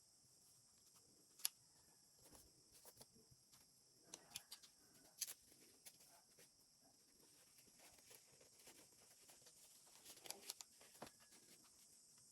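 Faint handling noises: scattered small clicks and light taps, with a loud one about a second and a half in and a cluster near the end, over a steady high hiss.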